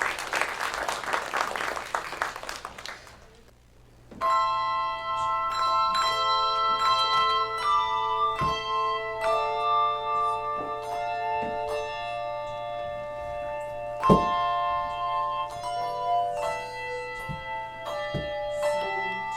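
A patter of noise dies away in the first three seconds. About four seconds in, a handbell choir starts ringing: bell notes at many pitches ring on and overlap as new chords are struck, with one sharp, loudest stroke about two-thirds of the way through.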